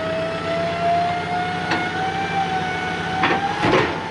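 Heavy machinery running with a steady whine that slowly rises in pitch over a low hum, with a few sharp clicks or knocks.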